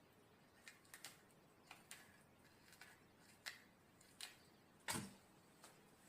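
Short, sharp snaps of a vegetable stalk being broken and its fibrous, hairy veins ripped away by hand, about nine in an uneven series, the loudest about five seconds in.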